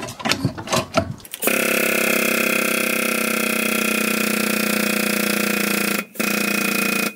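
A few metal clicks and knocks, then about one and a half seconds in a machine motor starts suddenly and runs steadily with a hum and a high whine. It cuts out for a moment about six seconds in and starts again.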